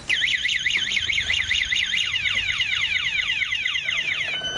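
A scooter's anti-theft alarm going off after the scooter has been knocked over: a loud electronic warble sweeping quickly up and down, about four cycles a second, changing to steadier tones near the end.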